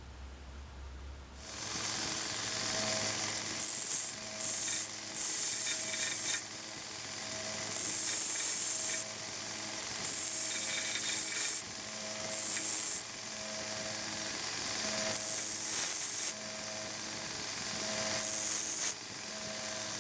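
A 1x30 belt sander starts up about a second and a half in and runs steadily with a hum. About eight times, brass handle pins set in wooden scales are pressed to the belt to sand them flush, each pass adding a hissing grind of one to two seconds.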